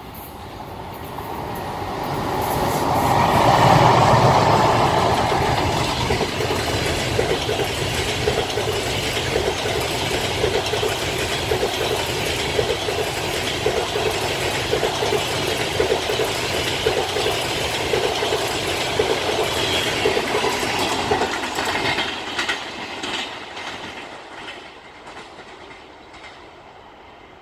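An EP20 electric locomotive hauling a double-deck passenger train passes, loudest as the locomotive goes by about four seconds in. The coaches' wheels then click steadily over the rail joints for about fifteen seconds, and the sound fades as the train moves away.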